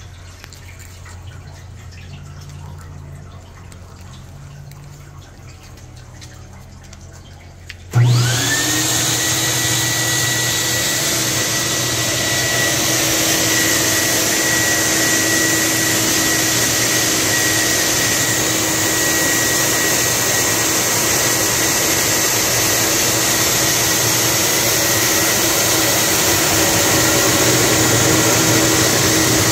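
A low steady hum, then about eight seconds in a CWD Weather Mat molded-mat cleaning machine starts up abruptly and runs with a loud, steady noise. A whine rises for a moment as the motor spins up, then holds steady.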